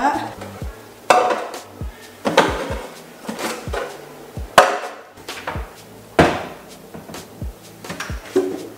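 Hard plastic storage boxes knocking and clattering as they are handled and set down on a kitchen counter: about five separate knocks, a second or so apart.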